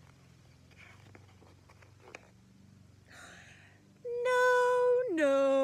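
A woman's voice making a long, loud, nasal call: it holds one high note for about a second, then drops to a lower note and holds that for about another second. It is preceded by faint paper rustling and a breath.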